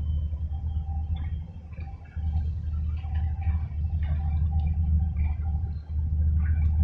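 Gusty wind buffeting the microphone: a low, uneven rumble that drops away briefly about two seconds in and again near the end.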